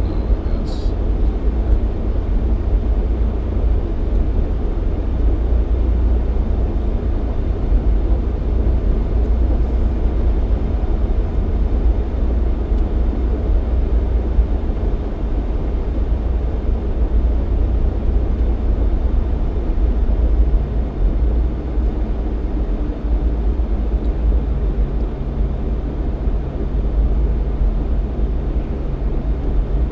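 Jeep XJ driving on a snowy highway: a steady low rumble of engine and tyres. A steady low engine tone joins in about two-thirds of the way through.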